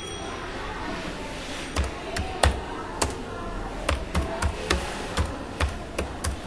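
Computer keyboard being typed on: about a dozen sharp, irregularly spaced key clicks, starting a couple of seconds in, over a steady low background noise.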